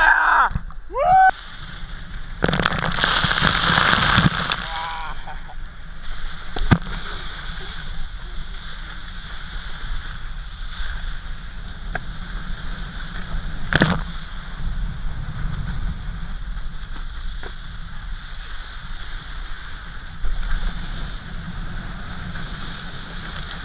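Water rushing and spraying under a cable-towed wakeskate. There is a loud splash about three seconds in, and two sharp knocks later on, around seven and fourteen seconds.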